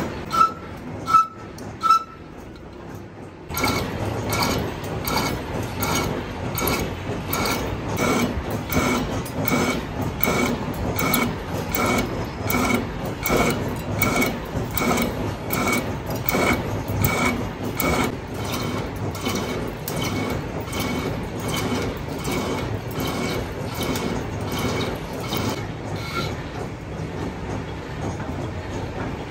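Metal striking metal in a crankshaft workshop: a few separate ringing clinks, then from about three and a half seconds in a steady, even clanking of about two strikes a second.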